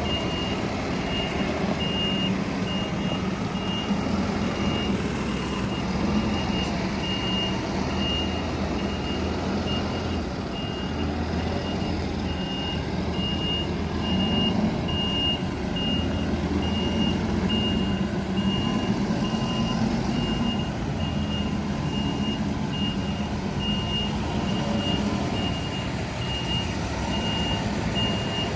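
Reversing alarm of a Merlo telescopic handler beeping at an even pace over the machine's diesel engine running, the engine note swelling and easing as it manoeuvres.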